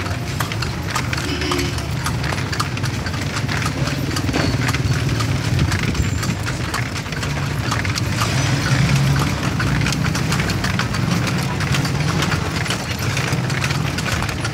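Horse's hooves clip-clopping on the street, heard from inside a kalesa (a horse-drawn carriage), as a quick run of sharp hoof clicks over a steady low rumble.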